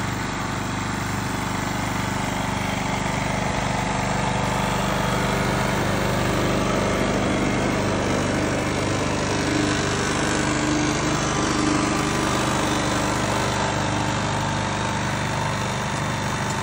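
Tracked robotic crop sprayer's motor running steadily with an even drone.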